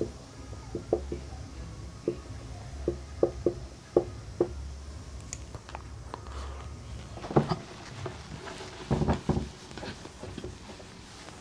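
Marker pen on a whiteboard: a string of short taps and scratchy strokes as words are written. Near the end come a few louder rubbing sounds as the board is wiped with a cloth duster.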